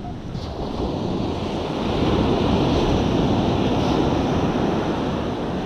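Heavy storm surf breaking, with wind rushing over the microphone; the surf swells louder about two seconds in.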